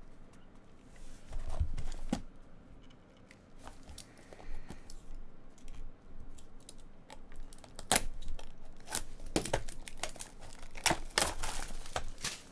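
Clear plastic shrink-wrap being torn and crinkled off a sealed trading card box: quiet handling at first, then a sharp snap as the wrap splits, followed by busy crackling tearing over the last few seconds.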